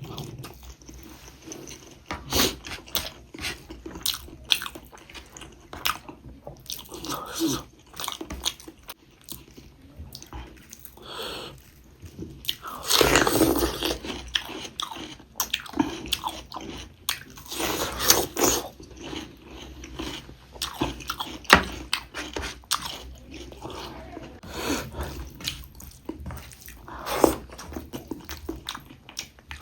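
Close-up sounds of a person eating pork ribs and rice: irregular biting, chewing and crunching with wet mouth clicks, louder for a few seconds near the middle.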